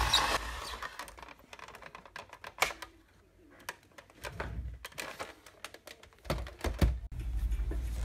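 Plastic snap clips of a Dell monitor's back cover clicking as the case is pried open, with scattered knocks from handling the monitor. A low rumble of handling comes in near the end.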